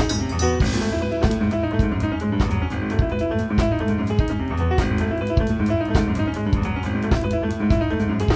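Live jazz trio music: piano, bass and drums playing a dense, driving passage, with a busy, regular drum pattern under sustained piano and bass notes.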